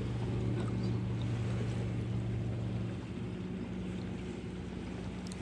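Steady low hum of a motorboat engine out on the water, with a faint wash of surf and wind; one tone of the hum drops away about three seconds in.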